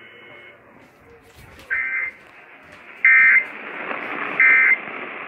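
Three short, shrill EAS data bursts about 1.3 seconds apart over a steady radio static hiss: the SAME end-of-message code that closes a NOAA Weather Radio tornado warning broadcast.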